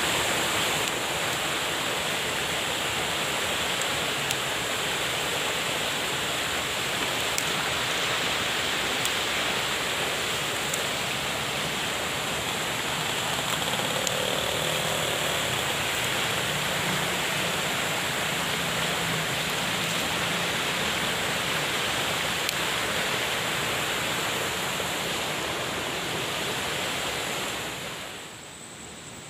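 Fast river rushing over rocks: a steady, loud wash of water noise that fades out near the end.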